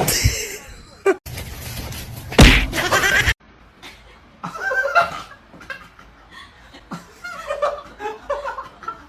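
A loud thump about two and a half seconds in, amid a noisy stretch that cuts off suddenly, followed by people laughing.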